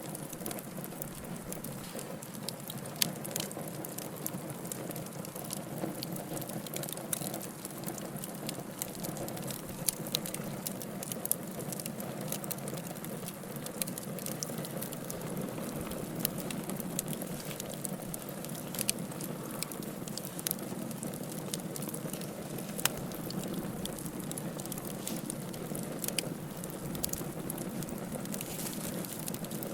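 Wood fire in a fireplace crackling steadily, with irregular small snaps and a few louder pops.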